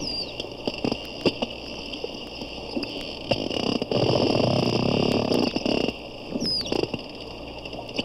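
Bottlenose dolphins (porpoises) heard through a hydrophone: scattered echolocation clicks, a short falling whistle just after the start and another past six seconds, and a loud creaking burst of rapid clicks from about four to five and a half seconds.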